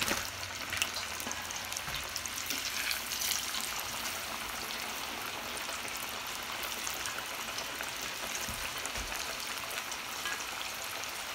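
Seasoned tilapia fillets deep-frying in extremely hot oil in a cast iron skillet: a steady sizzle with a constant scatter of small crackling pops.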